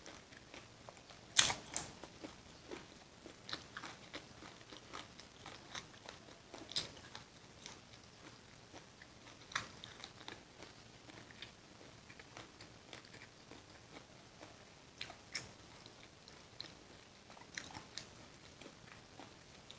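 A person biting, chewing and crunching food close up, with scattered crisp crunches and clicks; the loudest comes a little over a second in.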